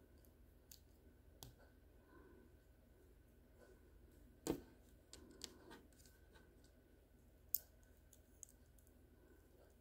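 Sparse light clicks and taps of small plastic building pieces being handled and pressed together, the loudest about four and a half seconds in, with near silence between them.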